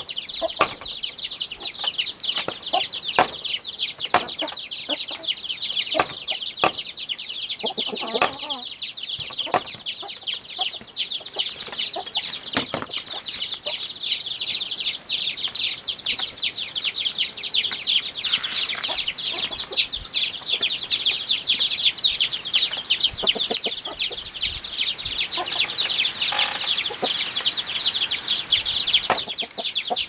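Knife chopping and cutting a chicken on a wooden chopping block, a few sharp knocks scattered through, over a continuous, fast, high-pitched chirping that fills the background.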